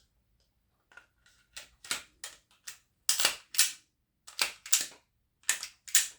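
A pistol's slide being racked by hand, with sharp metallic clacks as it is pulled back and snaps forward. A few lighter clicks come first, then three loud back-and-forward pairs.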